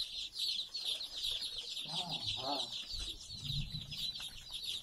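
A brood of day-old desi, FFG and Kuroiler chicks peeping all together in a dense, continuous high-pitched chorus.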